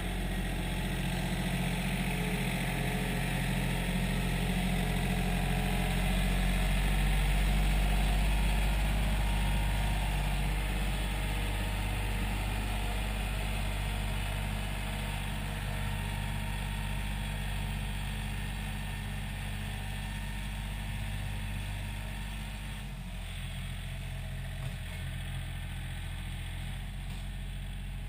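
John Deere 770 compact tractor's three-cylinder diesel engine running steadily as the tractor drives across the yard. It grows louder a few seconds in, then fades gradually as the tractor moves off.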